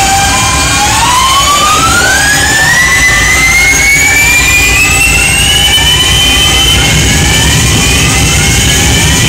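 A homemade electronic oscillator's tone sweeping slowly upward in pitch, fed through a Line 6 DL4 and a Giga Delay pedal, so that several delayed copies rise together as overlapping tones over a constant noisy hum. A steady tone at the start drops out about a second in as the glides begin.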